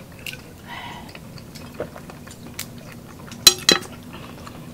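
Scattered small clicks and clinks of mussel shells and plates as boiled seafood is peeled and eaten by hand, with two sharper clacks about three and a half seconds in.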